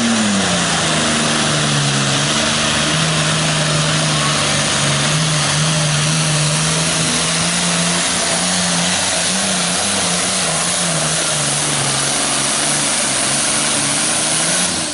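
International Harvester 1066 Pro Farm pulling tractor's turbocharged diesel engine at full throttle, hauling a weight-transfer sled. The engine note dips in pitch right at the start, then holds steady with slight wavering.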